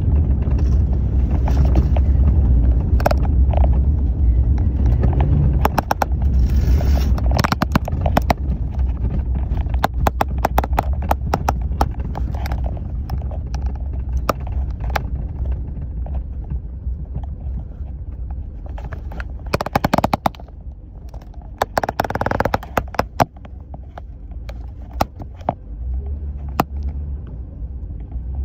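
Vehicle rolling slowly along a gravel road, heard from inside the cabin: a steady low rumble with many sharp pops and crackles of gravel under the tyres. The rumble fades for a few seconds about two-thirds of the way through, then comes back near the end.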